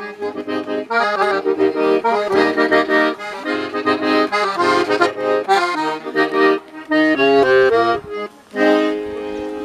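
Accordion being played live, a lively tune of quick chords and melody notes, with a brief pause about eight seconds in.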